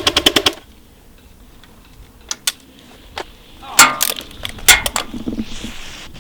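Airsoft electric gun firing on full auto: a rapid rattle of about a dozen shots a second that stops about half a second in. A few lone shots or clicks follow, then two louder sharp cracks near the four- and five-second marks.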